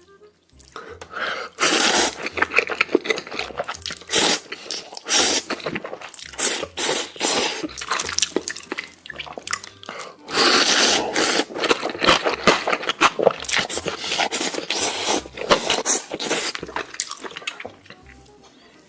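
Close-miked eating of noodles: slurping in noisy stretches, with wet chewing and mouth clicks in between.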